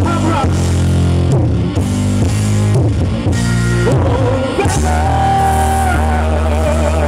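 Live rock band of electric guitar, keyboard and drum kit playing the close of a ballad, with a male singer's voice over it. About five seconds in, the singer slides up into a long held note with vibrato.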